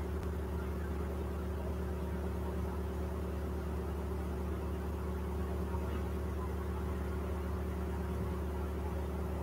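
Steady low electrical-sounding hum made of several even tones, with a faint hiss over it.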